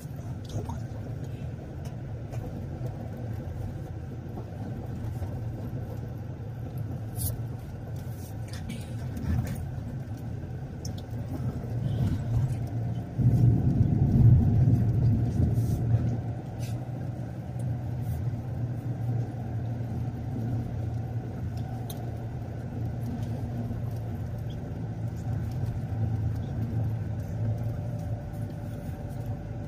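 Car on the move: a steady low engine and road rumble that swells louder for a few seconds about halfway through.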